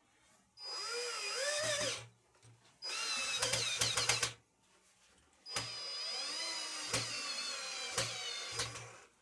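14.4 V cordless drill-driver turning screws in a metal TV wall-mount bracket, run in three bursts, its motor whine rising and falling in pitch as the screws load it. Sharp clicks come in the second and third bursts.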